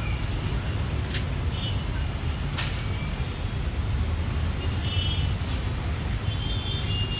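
Steady low rumble of outdoor street traffic, with a few sharp clicks and light rustling as nylon webbing is handled against a steel bed frame.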